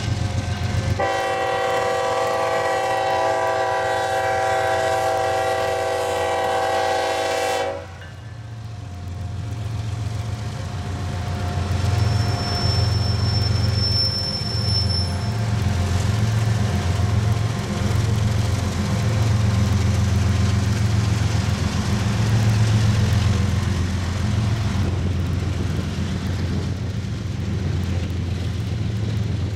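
BNSF diesel freight locomotive's air horn sounding one long chord of about seven seconds, starting about a second in and cutting off abruptly. It is followed by the steady low rumble of the locomotives' diesel engines and the freight cars rolling past.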